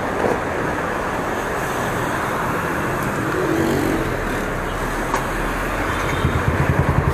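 Street traffic noise, then near the end a motorcycle with an aftermarket slip-on muffler runs close by, its exhaust giving a fast, even pulsing.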